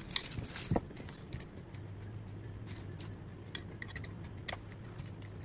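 Faint, scattered metallic clicks and ticks as a T-handle hex key turns the frame-mounting bolts on an inline skate boot, over a low steady hum that comes in about two seconds in.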